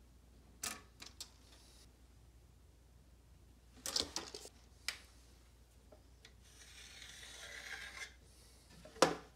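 Handling sounds of a tape measure and a plastic level on a pine board: a few light clicks and taps, a longer scraping rub as the level slides across the board, and a sharp knock near the end as it is set down on the wood.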